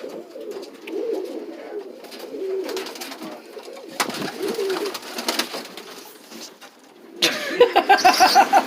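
Pigeons cooing: a run of low, rolling coos repeated one after another. Near the end a louder, rapid pulsing sound breaks in.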